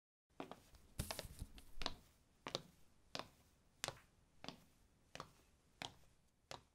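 Footsteps on a tiled floor, one step about every two-thirds of a second, with a few quicker taps around a second in.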